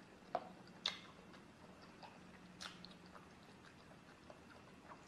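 A few faint, sharp, crisp clicks from eating at a table with raw cucumber slices and a metal fork: two close together in the first second, another near the middle, and fainter ones after.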